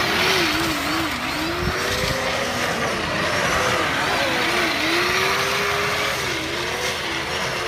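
Electric ride-on toy car, a Corvette-style Power Wheels, driving on asphalt: a steady rushing noise with a whine that keeps rising and falling in pitch.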